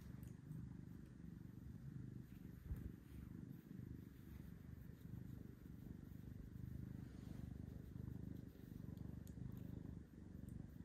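Big, low purr of a long-haired orange domestic cat being scratched under the chin, swelling and dipping with each breath. A brief knock about a quarter of the way in.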